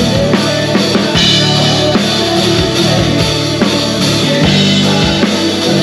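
Live country band playing, with the drum kit heard close up: kick and snare hits keeping a steady beat over bass, guitar and keyboards.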